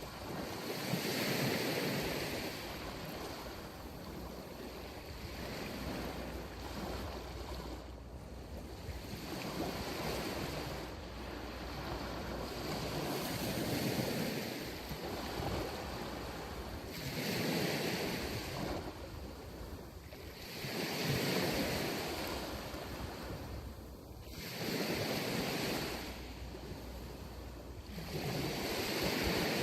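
Small sea waves breaking and washing up a sandy beach, the surf swelling and fading about every three to four seconds.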